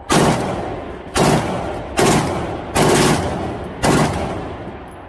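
Gunfire: five single shots roughly a second apart, each trailing off in a long echo, growing quieter toward the end.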